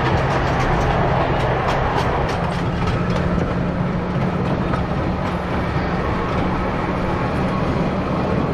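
Miniature park train running along its track, heard from aboard: a steady engine drone with the wheels clicking over the rails in the first few seconds, the engine note rising a step about two seconds in.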